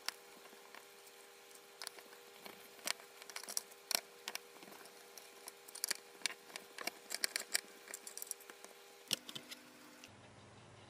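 Small screwdriver backing out the screws of a copper heat-pipe heatsink and fan on a mini PC's motherboard: irregular light metallic clicks and scrapes, with a faint steady hum underneath that stops about nine seconds in.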